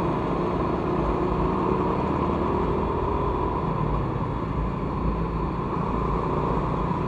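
Yamaha Vega ZR underbone motorcycle cruising at steady speed: the engine runs under a steady low rumble of wind and road noise on the camera microphone.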